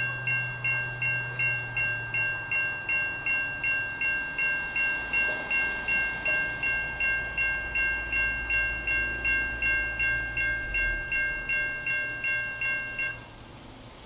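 Safetran Type 3 electronic railroad crossing bells ringing steadily, about two dings a second, while the crossing gates lower. The ringing cuts off suddenly near the end, with the gates down.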